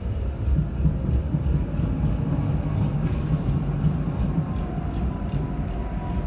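Train running along the tracks past the stop: a steady low rumble that swells for a few seconds, with a faint whine over it.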